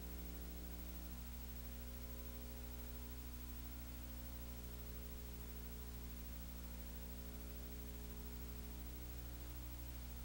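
Steady electrical hum with a row of overtones over a faint hiss.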